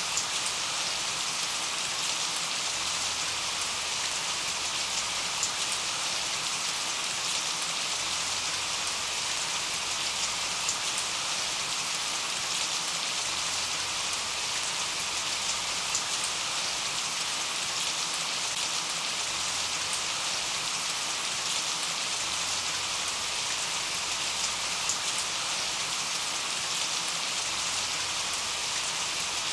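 Steady rain falling, an even hiss with scattered drop ticks, unchanging throughout.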